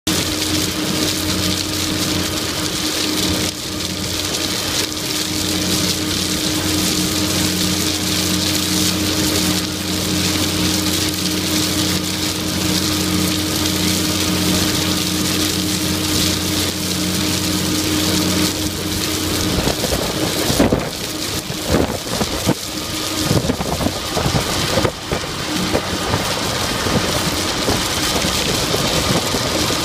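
Pegson tracked jaw crusher at work. Its CAT 3306 six-cylinder diesel engine drones steadily under a continuous hiss of crushed stone pouring off the discharge conveyor onto the stockpile. About twenty seconds in, a few seconds of irregular knocks and clatter break through.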